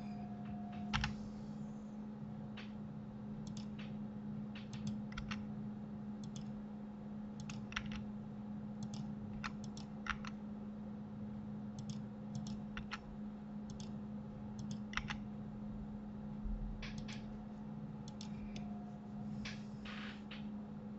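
Sparse, irregular clicks of a computer keyboard and mouse, over a steady low hum.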